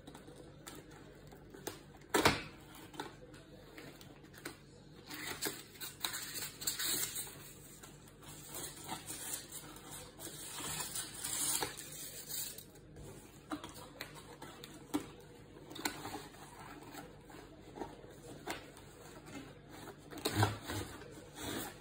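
Cardboard box and packing being handled while a plastic toy laptop is worked out of it: irregular scraping and rustling with scattered knocks, the sharpest about two seconds in.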